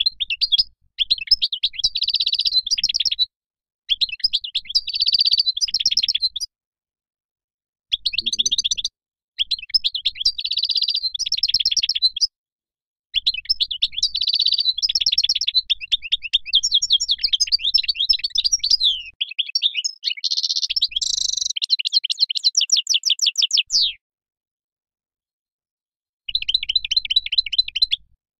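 European goldfinch singing: phrases of rapid, high twittering and trills with silent gaps between them. The longest phrase, in the middle, runs about ten seconds.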